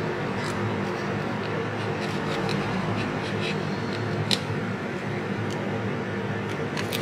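Light clicks and taps of hands handling a laptop and a USB-C power meter and cable, the sharpest about four seconds in, over a steady background hum.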